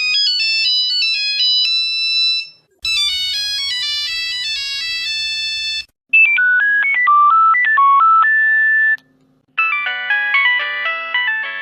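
Nokia phone ringtone melodies played one version after another, each a short run of quick notes ending on a held note, with brief gaps between them. The sound changes from version to version: thin single beeping tones at first, a richer tone from about three seconds in, plain beeps again from about six seconds, and fuller overlapping notes from about ten seconds.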